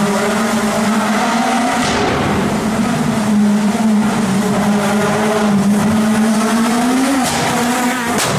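Rally car engine running hard at high revs, its pitch holding nearly level with small rises, briefly cutting out near the end before picking up again.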